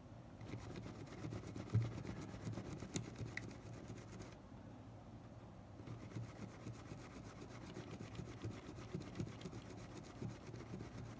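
Swab scrubbing and rubbing over the metal parts of a Sony Walkman WM-EX85 cassette mechanism to clear grime: a faint, irregular scratchy rubbing with small clicks.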